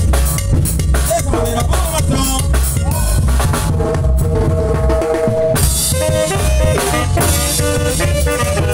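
Dance-band music in an instrumental passage: drum kit and bass keep a steady beat while melody instruments hold long notes above it.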